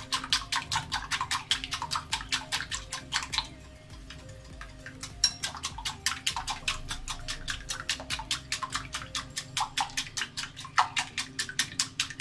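Wire whisk beating egg batter in a glass bowl: quick ticking strokes against the glass, about seven a second, stopping for a second or so about three and a half seconds in, then starting again.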